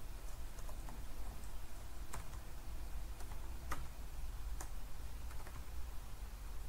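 Computer keyboard being typed on: scattered, unhurried keystrokes over a faint low hum.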